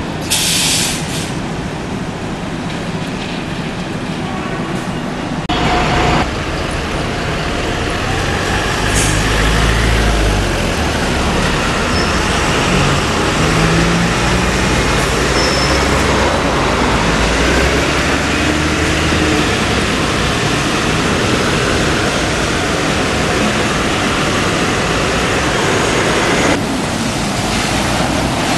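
City-centre bus traffic: diesel and hybrid double-decker buses running, pulling away and passing on wet road. There is a short hiss of air brakes about half a second in, and a deep engine rumble around a third of the way through.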